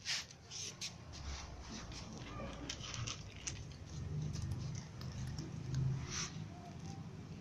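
Cats eating dry kibble off a concrete floor: scattered short crunches and clicks, over a low rumble from the handheld camera being moved.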